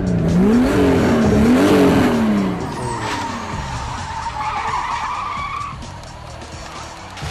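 Car engine revved twice in quick succession, its pitch climbing and falling each time, followed by a fainter high whine about four and a half seconds in.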